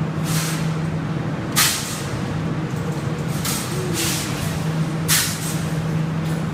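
Claw machine gantry motor humming steadily as the claw travels across the cabinet, with five short, sharp hisses, the loudest about a second and a half in and near the end.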